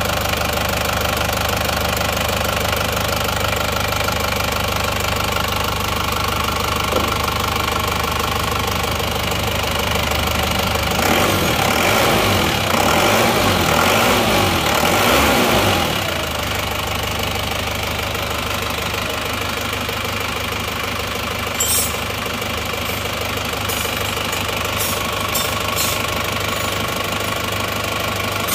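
Isuzu Panther diesel engine idling smoothly after a rebuild with genuine Isuzu pistons and liners, without the 'rang-rang-rang' rattle it had on imitation pistons. Its speed rises briefly about eleven seconds in and settles back by sixteen.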